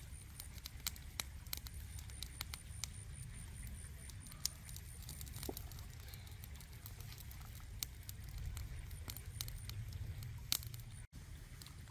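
Small wood fire crackling, with scattered sharp pops and snaps, under two salt-crusted fish grilling on a stick rack. A low steady rumble runs beneath.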